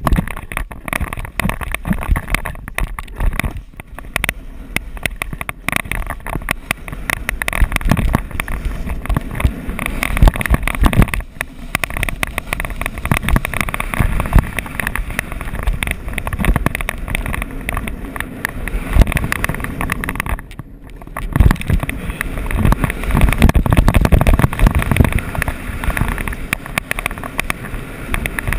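Snowboard running fast over hard-packed, rutted snow: a continuous rough scraping and chattering of the board, with rumbling wind noise on the camera microphone. The noise falls away briefly about twenty seconds in, then picks up again louder.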